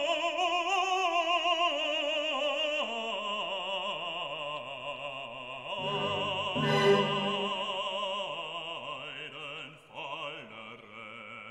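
Opera music: a singer holding long notes with a wide vibrato, changing pitch every few seconds.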